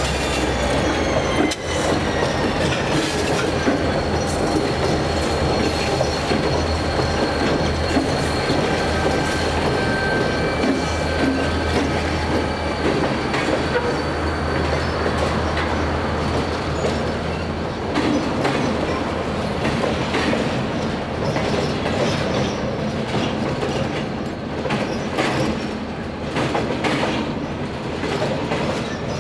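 Freight train crossing a steel railway bridge: a low diesel locomotive engine sound for the first half as the trailing units pass, then empty bulkhead flatcars rolling over, with a steady high wheel squeal and irregular clacking of wheels on the rails that grows more prominent in the second half.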